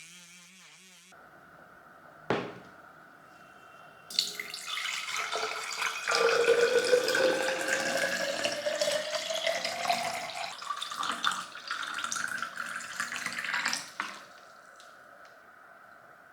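Water running into a container, its pitch rising steadily as the container fills, stopping abruptly; a single knock comes a couple of seconds before.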